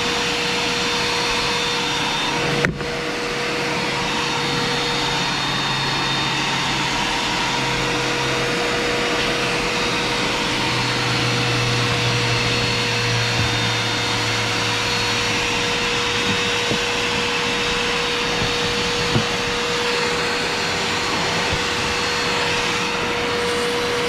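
Spray-extraction vacuum running steadily: a constant motor whine over rushing suction air, with a short click and dip about three seconds in.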